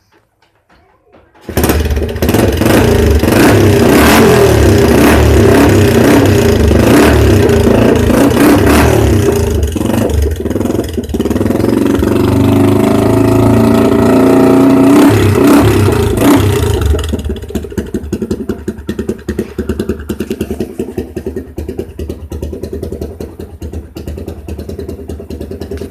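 Motorcycle engine starting about a second and a half in and revving hard through a 'machine gun' silencer insert, a part that spins in the exhaust flow, giving a loud exhaust note made of a rapid run of pulses. Near the end it drops back to a quieter, steady idle.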